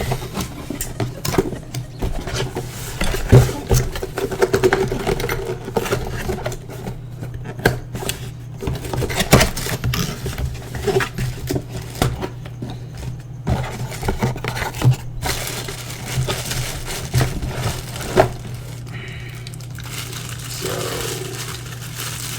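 A cardboard box being opened and unpacked: irregular scraping, rustling and knocks as the packaging is pulled open and the metal-housed LED flood light is lifted out and handled. A steady low hum sits underneath.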